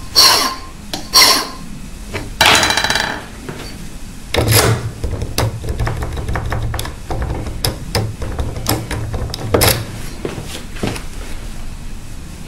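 A file rasping across a key blank in a few strokes, filing down the spot where a pin has just marked it. Then, from about four and a half seconds in, the blank is worked in a euro profile cylinder lock, wiggled and turned against the pins so they leave marks, with a run of metal clicks and knocks.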